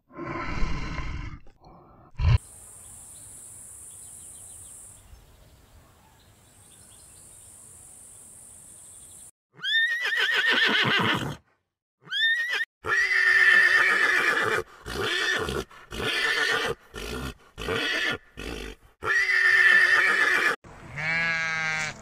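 Horses neighing and whinnying, a run of loud calls from about ten seconds in, one after another. A short bear growl comes at the start, and a sheep's quavering bleat at the very end.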